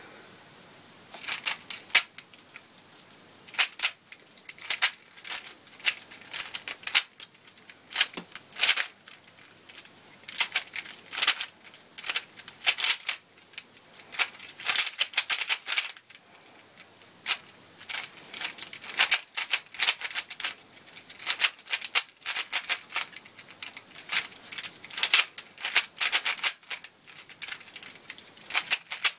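Plastic 3x3 speedcube (a Dayan) being turned fast by hand: quick spurts of sharp clicking and clacking layer turns, broken by short pauses, as in a timed beginner-method solve.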